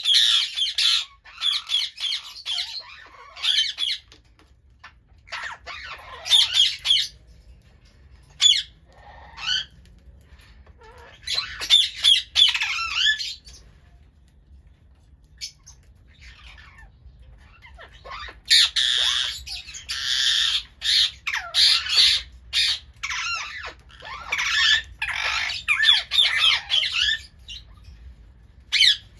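Indian ringneck parakeets squawking and chattering in loud, shrill bursts with short pauses between them. The calls are busiest near the start and again in the second half.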